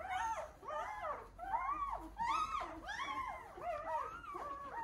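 Dog whining: a string of short, high whimpers that rise and fall in pitch, two or three a second.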